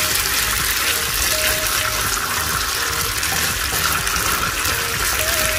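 Coconut milk boiling down in a frying pan: a steady, dense sizzle and bubbling as it reduces, the oil starting to separate out, the stage at which latik forms.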